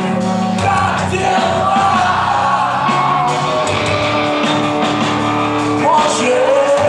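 Live rock band playing loud distorted guitars, bass and drums, with a shouted vocal.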